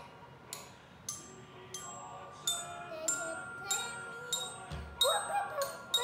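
Glockenspiel (student bell kit) played with mallets: single notes struck at an even pace, about one every half second or so, each ringing on, picking out a slow tune. Around the fifth second a brief sliding sound and a low thump come in under the notes.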